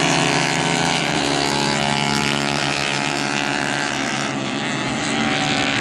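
Several 150cc racing motorcycles running together in a close pack, their engine notes overlapping in a steady sound.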